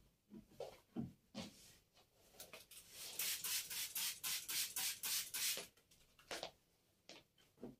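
Quick rhythmic scrubbing or wiping strokes on a surface, about four a second for some three seconds, with a few soft knocks of things being handled before and after.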